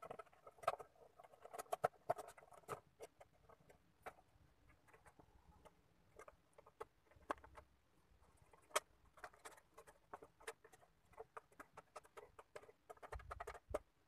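Fingers handling a small plywood bird box: irregular light clicks, taps and scratchy rubbing of wood, with a dull bump near the end.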